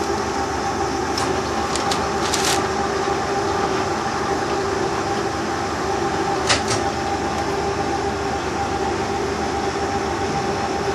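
Turret lathe running steadily at speed just after being started, a steady hum with a whine at two pitches, broken by a few short clicks.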